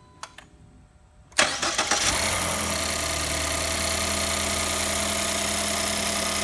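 Ford 1.5L GTDI EcoBoost turbocharged four-cylinder engine starting about a second and a half in after a couple of faint clicks, flaring briefly and then settling into a steady idle. It runs smoothly on all four cylinders with no misfire, a sign that the new spark plugs and coils went in correctly.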